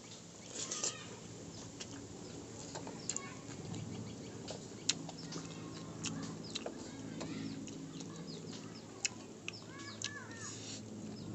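Eating noodles by hand: scattered wet mouth smacks and chewing clicks. Birds call in the background, with a quick run of short chirps near the end.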